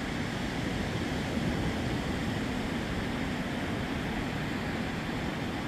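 Steady rushing noise of ocean surf on the beach, even and unbroken.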